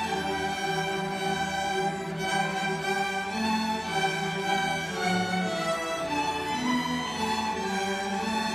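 Youth string orchestra playing, violins bowing several parts together in harmony, with sustained notes changing pitch every half second to a second.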